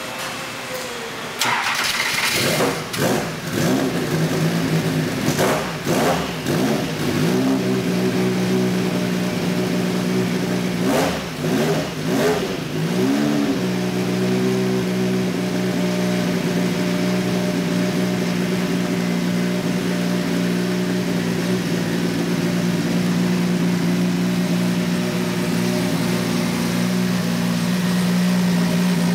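The #75 Nissan race car's twin-turbo V6 is started: it catches about a second and a half in, is blipped and revved repeatedly for about ten seconds, and then settles into a steady idle.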